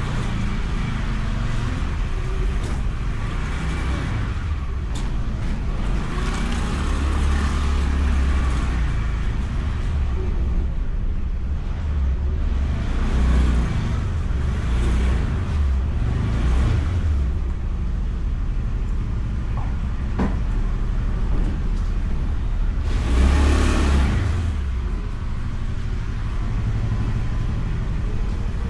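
Ride noise from a Honda Beat scooter picked up by a bike-mounted action camera: steady wind rush and engine and road noise, swelling several times, with the loudest swell about two-thirds of the way through.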